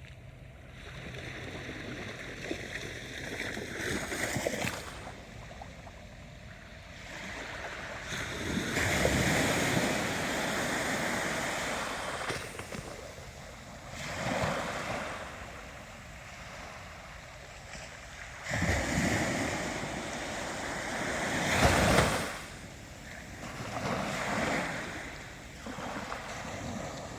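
Ocean waves breaking and washing ashore in repeated surges of surf noise a few seconds apart, the loudest break coming near the end.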